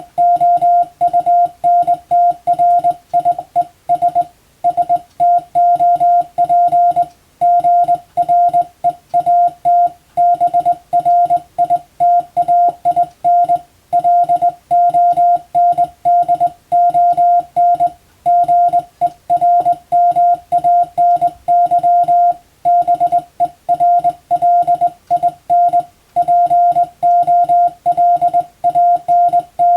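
Morse code in a single steady beep tone, keyed rapidly into dots and dashes, with brief pauses between groups every few seconds.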